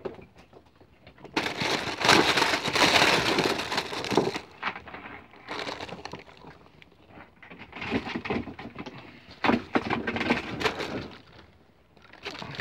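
Crackling, crinkling rustle of a plastic bait bag being handled, loudest for a few seconds early on, then coming in shorter bursts on and off.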